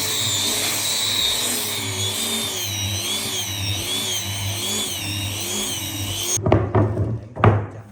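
A power tool runs under changing load, its pitch wavering up and down about twice a second, then cuts off suddenly near the end. A few sharp knocks follow.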